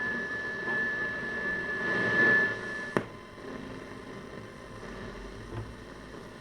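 Bush VHF64 valve radio on medium wave tuned between stations: static hiss with a steady high whistle for about three seconds, cut off by a sharp click, then quieter hiss.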